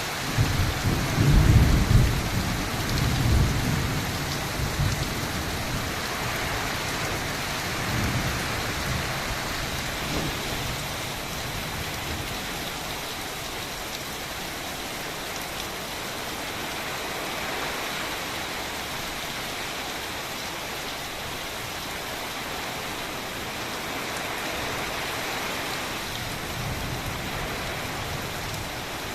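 Heavy rain falling steadily as an even hiss. Deep rumbles of thunder are loudest in the first few seconds, come again about eight seconds in, and return near the end.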